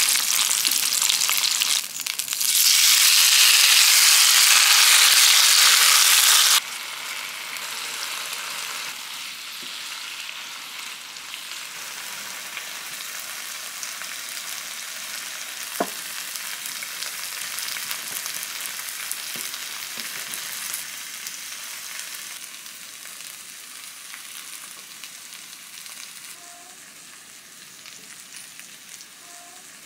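Onion and green onion sizzling in oil in a frying pan, loud for about the first six seconds, then cutting off abruptly to a fainter steady hiss. A single sharp click comes about halfway through.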